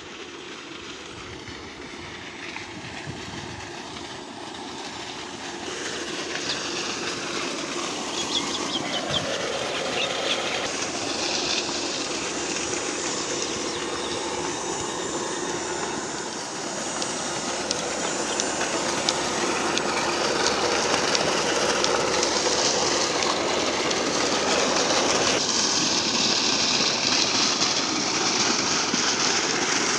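Solar-powered electric water pump running, with water gushing from its outlet pipe into a channel. It makes a steady rushing noise that grows louder over the stretch.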